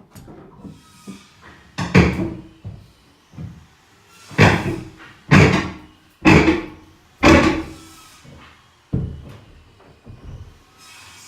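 A run of heavy thumps roughly a second apart, each ringing briefly, with lighter knocks before and after.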